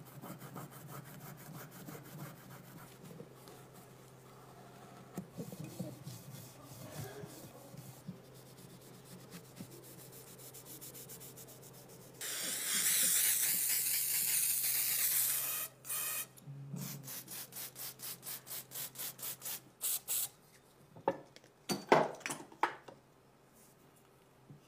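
A cloth rubbing and wiping over metal airsoft gun parts in quick repeated strokes. About halfway through there is a loud, steady hiss of three or four seconds that stops sharply, and a few sharp knocks come near the end.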